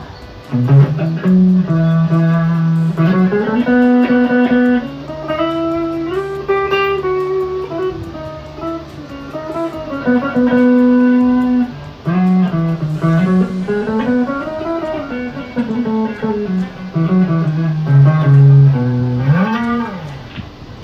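Custom hybrid electric guitar played through its neck pickup on a clean tone: a single-note lead solo of sustained notes, some bent up and back down in pitch.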